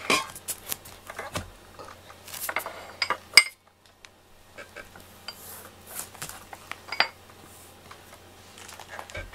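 Scattered light clinks and taps of dishes being handled, the loudest a little over three seconds in, followed by a brief dropout and fainter, sparser taps.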